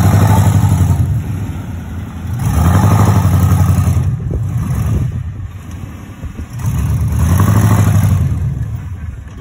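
Truck engines revving hard in three long surges, each rising and then falling away, with a few knocks and clatters between them. A lifted Chevrolet Suburban stuck on a dirt mound is under load as a pickup pulls it free on a tow strap.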